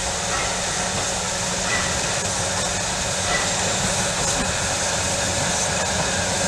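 Victorian Railways J-class steam locomotive J549 approaching with a goods train: a steady rushing noise of the engine working, with steam hissing from around its cylinders.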